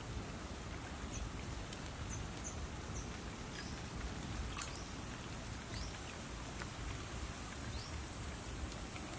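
Steady wash of stream water stirred by people wading, over a low rumble, with faint short bird chirps now and then.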